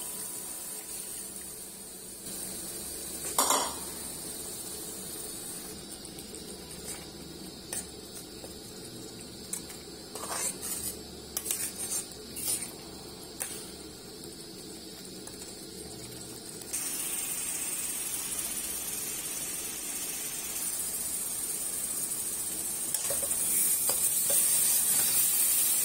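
Masala gravy sizzling in a nonstick kadai while a steel spatula stirs it. The spatula clinks and scrapes against the pan, mostly in the middle. About two-thirds of the way through the sizzle gets suddenly louder, and it keeps building toward the end.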